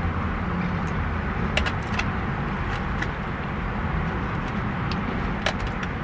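Steady low rumble and hiss inside a car, with a few light clicks from a white plastic fork in a takeout container.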